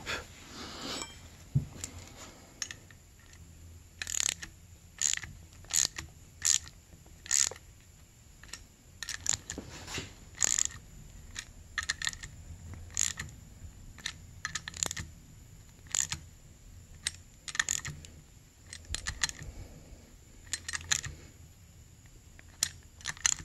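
Socket wrench turning a new threaded zerk grease fitting into a snowmobile spindle, giving sharp metallic clicks at uneven intervals, about one to three a second.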